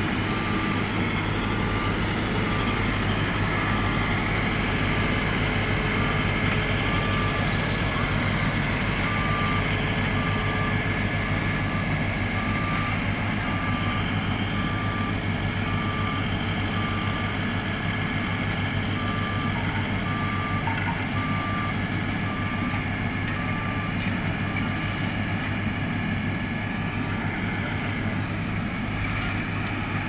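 Diesel engines of an asphalt paver and a dump truck tipping asphalt into its hopper, running steadily, with a backup-style warning beeper sounding about once a second until it stops near the end.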